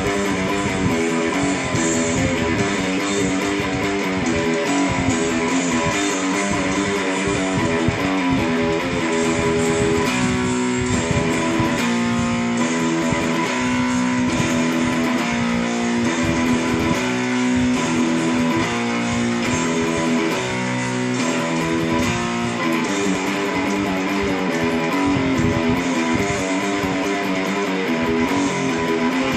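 A live band playing with strummed electric guitar leading. The texture thins to a few held notes for a stretch in the middle before filling out again.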